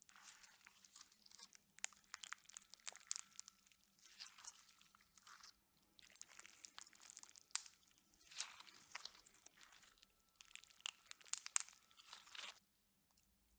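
Slime packed with styrofoam balls being worked, giving dense crunching and crackling pops in repeated rounds of a second or two with short pauses between them. The crackling stops about a second before the end.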